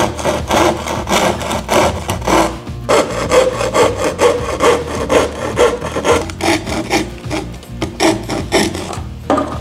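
Japanese keyhole saw (hikimawashi-noko) cutting out a sound hole in a thin wooden cajon back panel, rasping in quick back-and-forth strokes about two or three a second.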